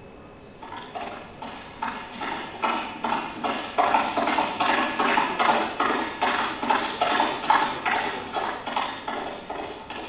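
Horse hooves clip-clopping at a steady trot, about three beats a second. It is a sound effect played through the hall's speakers, growing louder over the first few seconds and then easing off, as if a horse comes near and passes.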